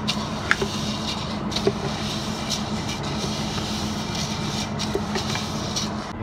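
A wooden spatula stirring vermicelli noodles as they toast golden in a large stainless steel pot: a steady rustling, scraping hiss with scattered light clicks, over a steady low hum.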